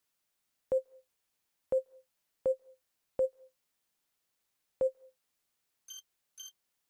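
KODI media centre menu navigation sounds: five short, low-pitched clicks as the cursor moves, irregularly spaced, each with a faint brief echo. Near the end come two quicker, higher-pitched blips.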